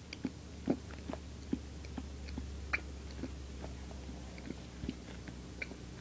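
Soft, irregular wet mouth clicks and smacks, a few a second, from a tongue working inside a closed mouth with the cheeks puffed full of air, over a low steady hum.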